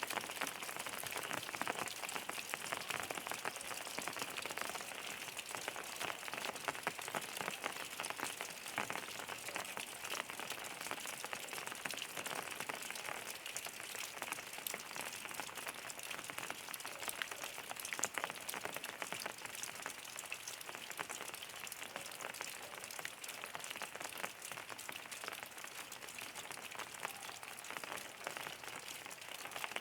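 Steady rain with many individual drops pattering on a surface, an even hiss with fine ticks throughout.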